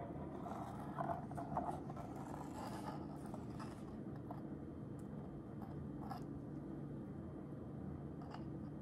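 Light scraping and clicking as a rusty steel electrolysis anode is worked into a motorcycle gas tank's filler neck through a rubber plug, with a cluster of sharper scrapes about a second in and single clicks near six seconds and near the end. A steady low hum runs underneath.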